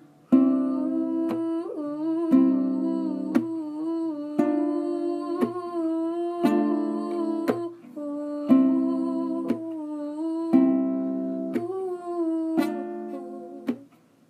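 Wordless humming of the melody over strummed acoustic chords, one strum about every second.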